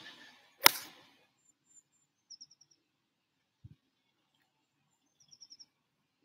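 A golf iron striking the ball off the turf: one sharp, loud click about two-thirds of a second in. Short bursts of bird chirps follow, with a brief low thump in between.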